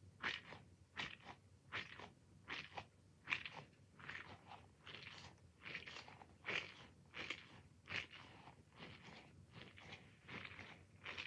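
Squishy toy ball being squeezed and released over and over, each squeeze a short quiet rustling sound, about two a second.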